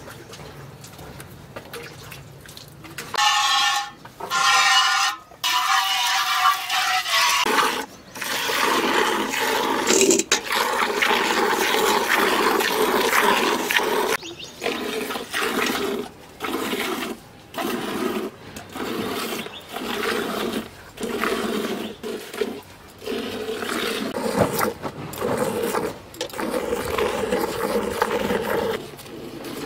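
Cow being milked by hand into a steel pail: milk squirts from the teats in rhythmic spurts, about one a second. The first spurts, about three seconds in, ring with a pitched tone. After that they are a frothy hiss into the milk already in the pail.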